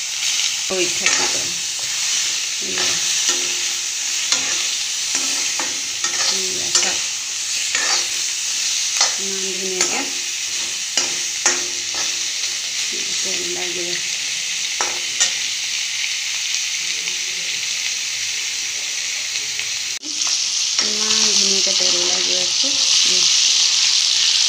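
Pork pieces sizzling in a dry wok with no oil added, their fat rendering out, while a spatula scrapes and knocks against the pan as they are stirred. The sizzling gets louder about twenty seconds in.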